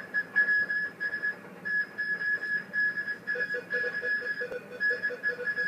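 Rapid high-pitched electronic beeping in bursts of several beeps with short gaps, like a digital alarm clock; a second, lower beeping joins about three seconds in.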